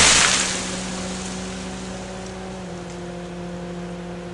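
The tail of a loud crackling, crashing noise dies away in the first half second, leaving an engine running steadily at idle with a steady hum.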